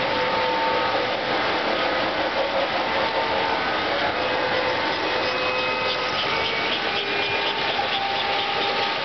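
American Flyer toy trains running on the layout: a steady mechanical whir of electric motors and wheels on metal track, with short faint tones coming and going over it.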